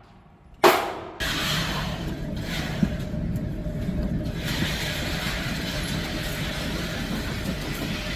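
A single pistol shot about half a second in, ringing off briefly. Just after a second, a steady rumbling background noise starts abruptly and carries on.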